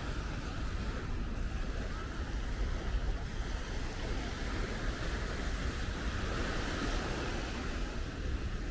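Steady wash of sea surf breaking on a sandy beach, with a low rumble of wind on the microphone.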